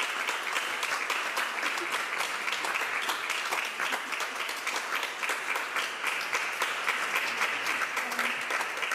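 Audience applauding: a dense, steady patter of many hands clapping, with a few voices among it.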